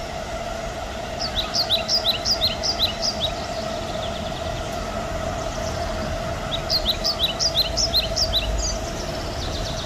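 Small songbird singing twice: two bouts of quick, high, downward-slurred notes, about four a second, each bout lasting about two seconds. A steady low hum runs underneath.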